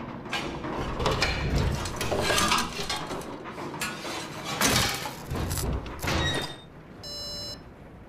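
Film sound effects: a run of mechanical knocks, clanks and scraping strokes. They die away near the end, where a short electronic buzzing tone sounds.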